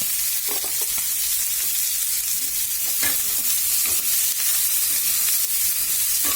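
Chicken and chopped onions sizzling steadily in a pan, stirred now and then with a few short scrapes.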